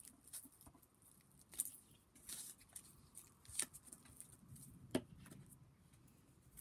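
Faint handling sounds of a glue stick being rubbed onto paper shapes on a cutting mat: soft rustles with a few sharper clicks.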